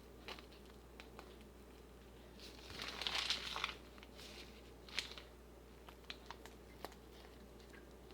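Plastic piping bag crinkling as it is handled and squeezed, with one longer, louder crinkle about three seconds in and a few light clicks and taps around it.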